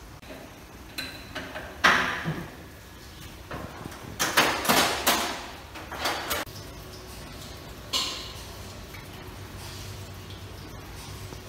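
Metal tools clanking and knocking against the car's underside while the suspension is adjusted during a wheel alignment: a sharp clank about two seconds in, a quick run of knocks midway, and a few more after.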